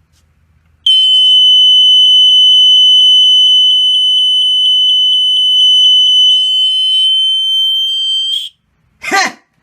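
BRK 1200 smoke alarm sounding its test alarm: one continuous, loud, high-pitched tone that starts about a second in, holds for about seven and a half seconds, then cuts off.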